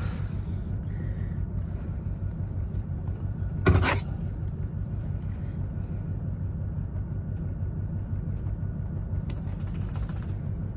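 Steady low engine rumble heard inside a converted school bus, with one sharp knock on the counter about four seconds in.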